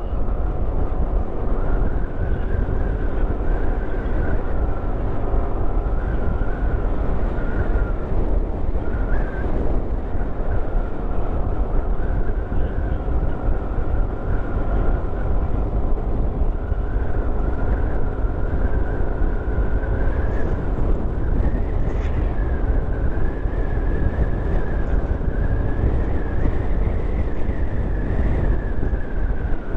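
Motorcycle engine running steadily while cruising along a road, with a continuous rush of wind and road noise on the microphone.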